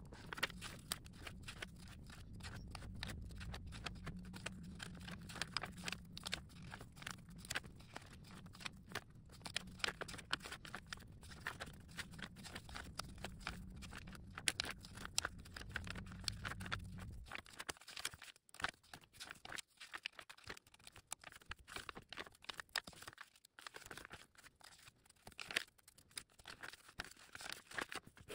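Paper journal pages being turned and rustled by hand in quick succession, a dense run of crisp page flicks and rustles. A low steady hum underneath cuts off about two-thirds of the way through.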